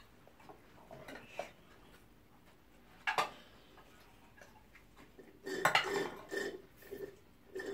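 Cutlery clinking and scraping on plates and a glass serving dish as food is served and eaten, with a sharp clink about three seconds in and a busier run of spoon-on-dish scraping near the end.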